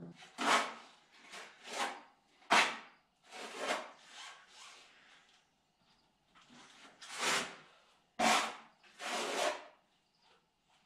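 Trowel spreading thin-set mortar over fiber mesh tape on cement-board seams: a dozen or so short scraping strokes at an uneven pace.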